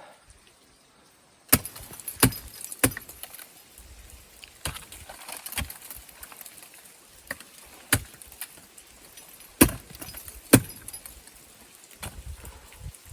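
Irregular sharp clicks and knocks of metal gear clinking, starting about a second and a half in and going on unevenly, with a light jingle between the louder knocks.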